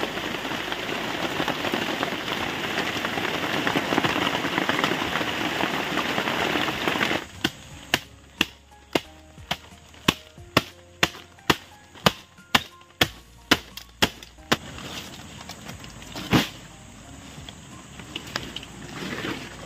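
Heavy rain falling steadily, cut off suddenly about seven seconds in. Then a run of about fifteen sharp knocks, roughly two a second, with one last knock a couple of seconds later.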